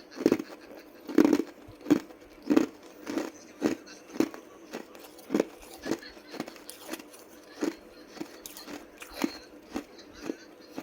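Ice being chewed close to the microphone: a steady run of sharp, crisp crunches, about one and a half a second, loud at first and smaller as the pieces break down.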